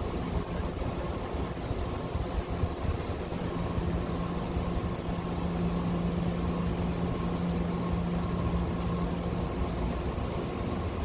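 Steady mechanical hum with a low droning tone, which weakens a little near the end.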